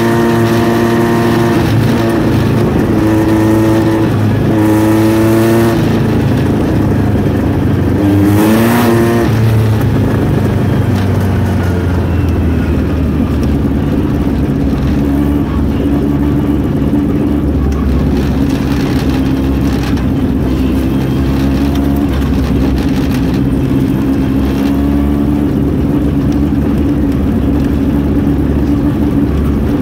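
Engines of open-wheel dirt-track race cars running at close range. They rev up and down a few times in the first ten seconds or so, then hold a steadier note.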